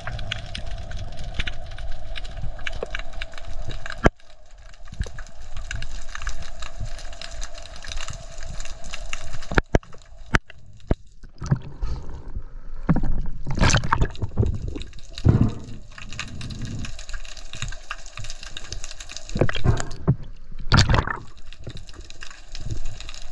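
Water sounds on a spearfisher's camera: a muffled underwater rumble with scattered clicks, then loud irregular sloshing and splashing of water around the camera at the surface about halfway through and again near the end.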